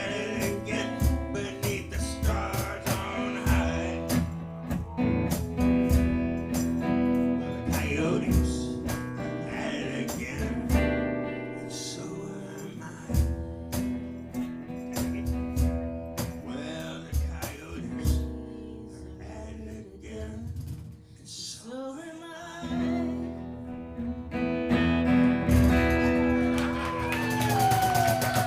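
Live acoustic guitar playing with singing. Several voice glides fall in pitch near the end.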